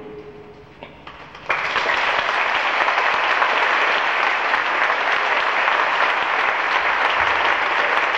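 The last of a choir's final chord dies away, then an audience breaks into applause suddenly about a second and a half in and keeps clapping at a steady level.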